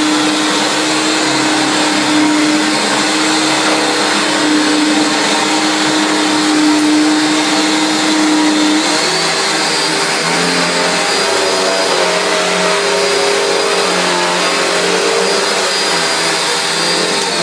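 Panasonic MC-E42N upright vacuum cleaner's 650-watt motor running steadily on carpet with the brush roll turning. Its pitch steps up about nine seconds in and a high whine joins it. It carries a rattle that the owner suspects comes from the brush roll's end caps.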